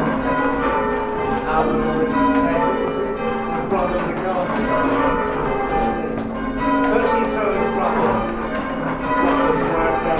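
Church tower bells rung in changes, one bell after another in a steady, unbroken stream of strikes whose tones ring on and overlap.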